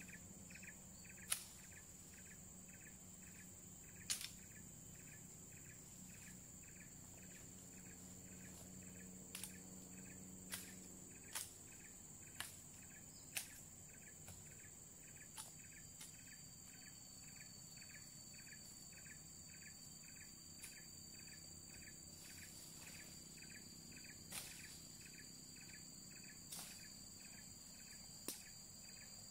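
Insects calling steadily: a high continuous whine and a pulsed chirp about three times a second. About a dozen sharp chopping knocks come at irregular intervals, most of them in the first half, from a blade cutting into brush or wood.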